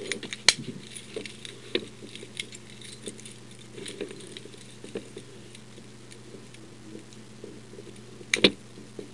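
Metal keys on a key ring jingling and clicking as they are handled, with scattered small clicks and a sharper double clack about eight seconds in.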